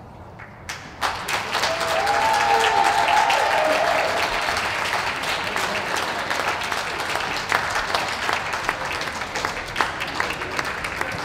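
Crowd applauding, starting about a second in, loudest over the next few seconds and then slowly tapering off. A brief call from someone in the crowd rises over the clapping about two seconds in.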